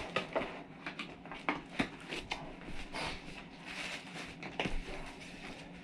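A shipping package being handled and opened: irregular rustling and scraping of packaging with scattered light knocks and clicks.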